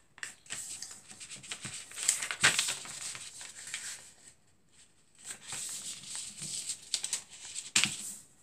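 A sheet of A4 paper being handled and folded by hand on a tabletop, with rustling and crinkling as it is creased. The sound is loudest about two seconds in, goes quiet for about a second midway, and ends with a sharp tap near the end.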